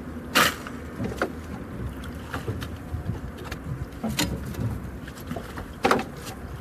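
Steady low rumble of water current and wind on the microphone aboard a small boat, broken by four sharp knocks, the loudest about half a second in and near the end.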